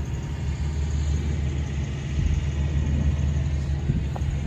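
Steady low rumble with no clear beginning or end.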